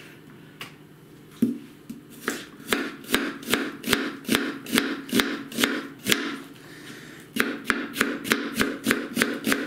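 Kitchen knife slicing an onion into thin half-rings on a plastic cutting board: a regular run of sharp knocks, two or three a second, starting a second or so in and pausing briefly past the middle.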